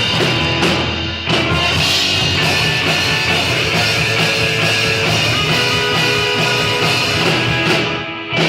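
Live rock band playing, with drum kit and guitar, briefly dropping out about a second in and again near the end.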